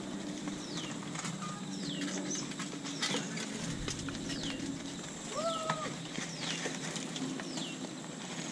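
A bird repeats a short, high, falling whistle about once a second. Underneath are the tyre noise and scattered clicks of bicycles riding past on a dirt track.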